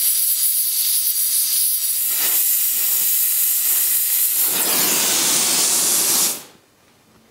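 Oxy-fuel torch flame hissing steadily as it heats a clamped steel brace to relax it into its bend; the hiss stops suddenly about six seconds in as the flame is shut off.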